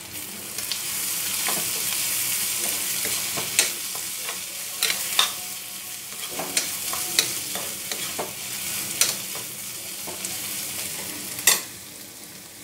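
Chopped onion, green chilli, ginger, curry leaves and coriander sizzling in oil in a small kadai while a spatula stirs them, clicking and scraping against the pan. A louder knock of the spatula on the pan comes near the end.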